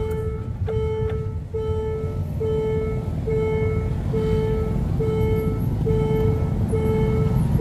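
Railway level-crossing warning bell ringing at an even pace, about ten rings a little under a second apart. Under it is the low rumble of motorcycle engines waiting at and crossing the tracks, growing slightly louder.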